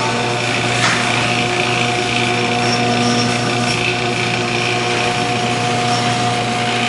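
Garage door opener motor running steadily as it drives the door open, a constant mechanical hum with a brief click about a second in.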